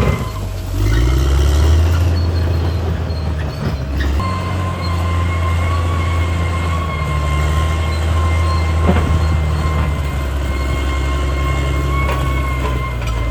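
CAT D6R XL bulldozer's diesel engine running under load, revving up about a second in. A steady high squeal joins about four seconds in, typical of the steel tracks grinding through.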